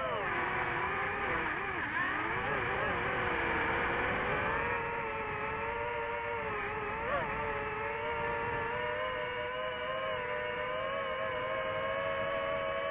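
FPV quadcopter's electric motors and propellers whining in flight. The pitch dips and wavers as the throttle changes for the first few seconds, then holds nearly steady at cruise, with a short blip about seven seconds in.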